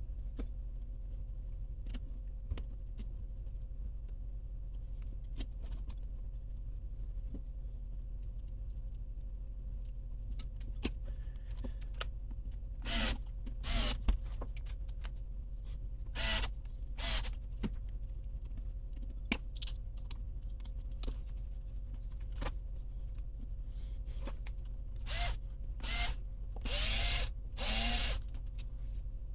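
Several short whirring bursts of a small electric motor, a few of them close together near the end, with light clicks of parts being handled between them.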